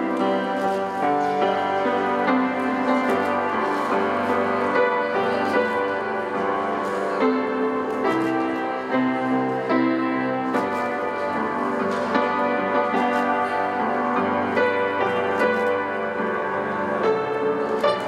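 Instrumental background music, piano to the fore, playing sustained notes and chords.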